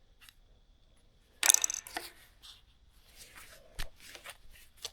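Small metal pieces clinking and clicking as they are handled: one bright metallic clatter about a second and a half in, then a run of lighter clicks and clinks, with one sharp click near the end.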